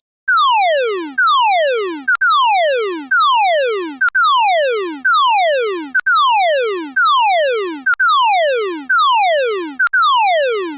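Synthesized emergency-alert alarm tone: a falling pitch sweep from high to low, repeated about once a second, with short high blips between some of the sweeps.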